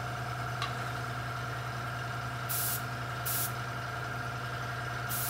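Airbrush compressor running with a steady hum, and two short hisses of air from the airbrush about two and a half and three seconds in: test bursts while the pressure is turned down to just under 30 psi.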